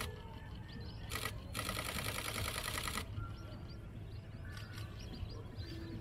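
DSLR camera shutters firing in rapid continuous bursts: a short burst about a second in, then a longer one of about a second and a half. Small birds chirp faintly throughout.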